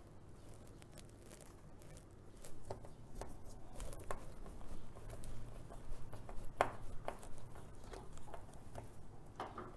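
Handling noise of a flexible ball-jointed plastic camera tripod being twisted to screw it into a base: scattered small clicks and rubs of the plastic joints, starting about two seconds in, the loudest click a little past halfway.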